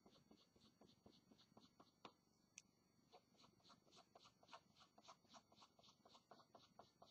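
Pencil hatching on paper: faint, quick scratching strokes, about four or five a second.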